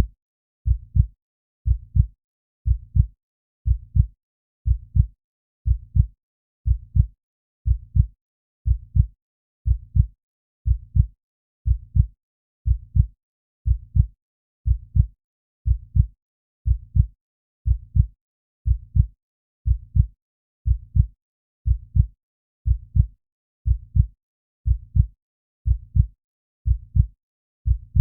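Human heartbeat: a steady lub-dub, two low thuds per beat, repeating about once a second at a calm resting pace.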